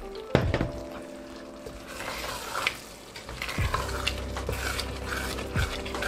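Wooden spoon stirring boiled green chickpeas into sizzling masala in a steel pressure-cooker pot, with scraping strokes over a frying hiss. A metal clunk sounds about a third of a second in, as the emptied steel cooker is set down.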